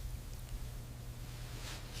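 Quiet room tone: a steady low hum under a faint hiss, with no distinct sounds.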